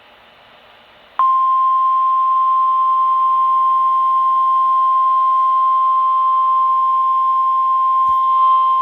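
NOAA Weather Radio 1050 Hz warning alarm tone: a single steady high tone that starts about a second in and holds. It announces the severe thunderstorm warning broadcast that follows.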